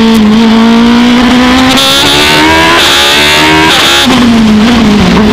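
Wolf GB08F1 hill climb race car's engine, heard onboard, running hard under acceleration. The revs climb in steps, then drop back lower about four seconds in.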